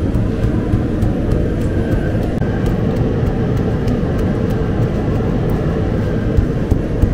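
Bakery machinery running with a steady low rumble, with faint ticks scattered over it.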